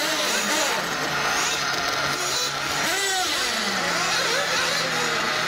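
Radio-controlled off-road buggies running round a track, their motors revving up and down in overlapping rising and falling whines.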